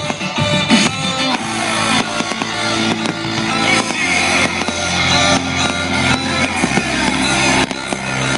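Music with held bass notes that change twice, mixed with fireworks bursting and crackling in irregular cracks and bangs throughout.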